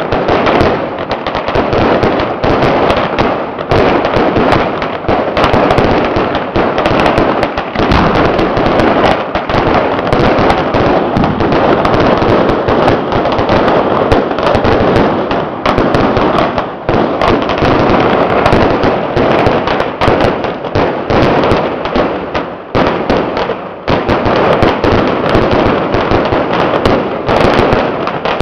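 Strings of firecrackers going off in a dense, rapid, unbroken crackle of loud bangs, with a couple of brief lulls in the second half.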